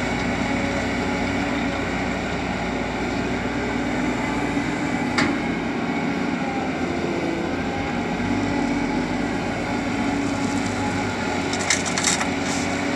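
Caterpillar 320D excavator's diesel engine running steadily while it digs and loads laterite soil, with one sharp knock about five seconds in and a quick cluster of knocks near the end.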